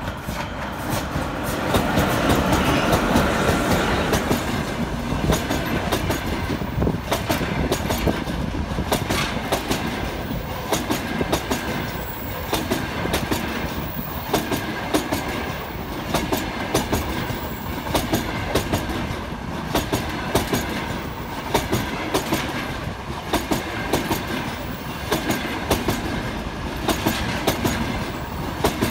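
A ChS7 electric locomotive passing close by, loudest a couple of seconds in. It is followed by a long train of passenger coaches rolling past, its wheels clicking steadily over the rail joints.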